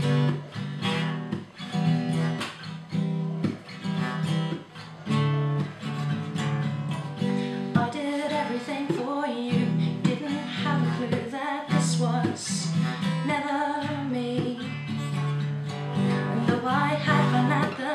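Steel-string acoustic guitar strummed in a steady rhythm of chords, with a woman's singing voice joining over it from about halfway through.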